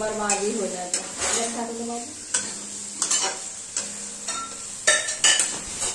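Tomato-and-onion masala sizzling in hot ghee in a kadhai while a spatula stirs and scrapes it around the pan, with sharp clinks of the spatula against the metal about five seconds in.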